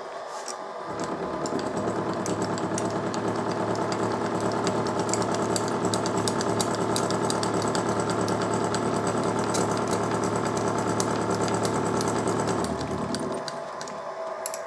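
Sieg mini mill running with an indexable face mill taking a pass across an aluminium block: a steady motor and cutting sound with fine ticking of chips. It grows louder and deeper about a second in as the cutter bites, and eases back near the end.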